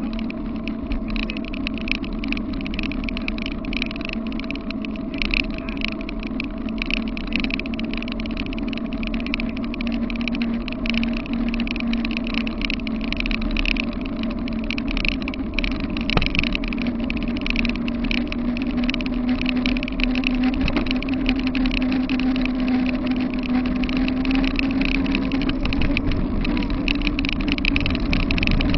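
Wheels of a dog-pulled vehicle rolling fast on a paved path, with a fast rattle over the ride. A steady hum runs underneath and slowly rises in pitch and gets louder toward the end.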